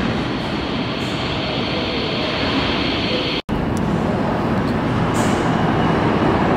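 New York City subway train running through the tunnel: a steady, loud rumble with a faint high whine. It drops out completely for a split second about halfway through, then carries on.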